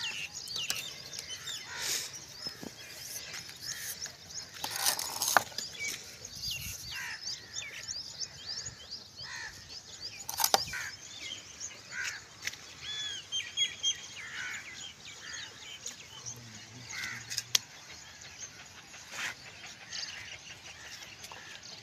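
Many small birds chirping and calling throughout, with a few sharp scrapes and taps of a steel trowel on wet cement plaster, the loudest about ten seconds in and again near the end.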